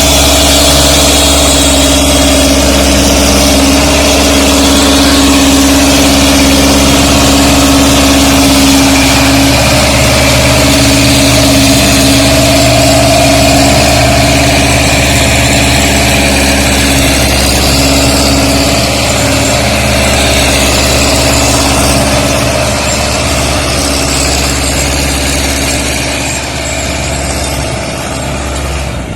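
Zetor tractor's diesel engine running steadily and loudly, easing off somewhat over the last few seconds.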